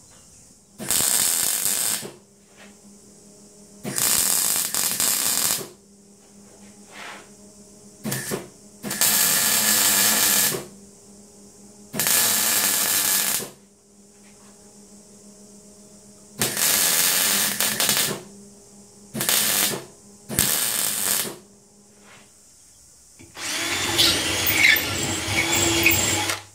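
MIG welding in short bursts, about seven welds of half a second to two seconds each, crackling, with a low hum between them. Near the end a Makita cordless drill runs for about three seconds, drilling through the freshly welded plates.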